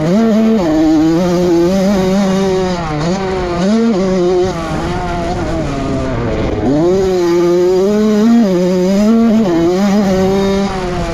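Honda CR85's two-stroke single-cylinder engine revving hard under load, its pitch climbing and dropping sharply again and again through gear changes. About six seconds in, the pitch falls away as the throttle is shut for a turn, then climbs again on the way out.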